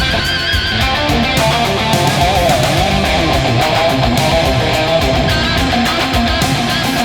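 Instrumental rock film-score music: a lead electric guitar holds long notes with a wide vibrato over bass and drums.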